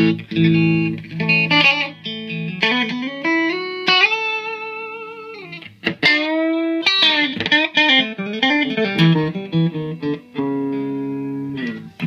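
Electric guitar, a custom Stratocaster, played through a Yerasov Bulldozer 50-watt EL34 valve head on its clean channel into a speaker cab: single notes and short phrases, with a long held note about four seconds in and pitch bends about six seconds in.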